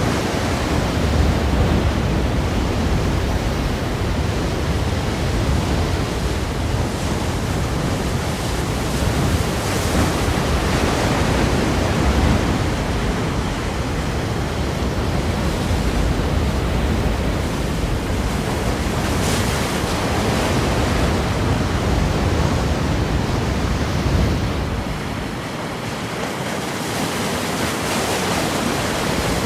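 Ocean waves breaking against rocks, a continuous roar of surf that swells and eases, dipping a little about five seconds before the end.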